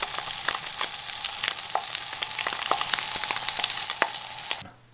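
Lake trout fillets frying in a pan of hot fat: a steady sizzle full of small crackles and pops, cutting off suddenly near the end.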